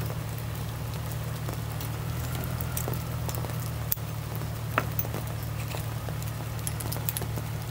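A few light clicks and taps, revolvers and cartridges being handled at a table, over a steady low hum.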